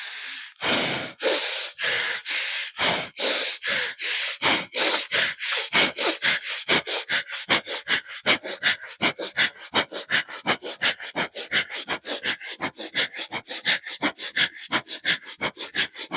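Rapid, forceful breathing in and out through one nostril at a time, switching nostrils, as in a fast alternate-nostril pranayama. The strokes of hissing air are even and speed up from about one and a half a second to about four a second.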